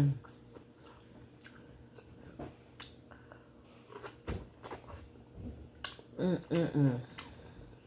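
A person chewing steamed conch meat with wet mouth clicks and smacks. About six seconds in comes a short three-pulse giggle.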